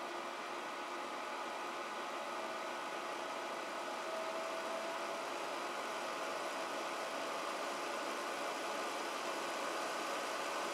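Zero Breeze Mark 2 portable air conditioner running: the fan blowing air with a steady whir over the hum of its compressor, growing slightly louder about four seconds in.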